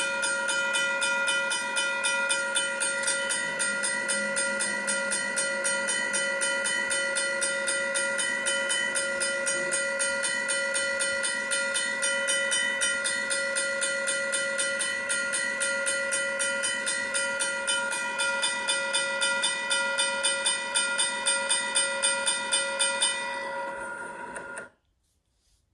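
Railroad crossing bell ringing steadily, its repeated dings at about two strikes a second, then cutting off suddenly about a second before the end.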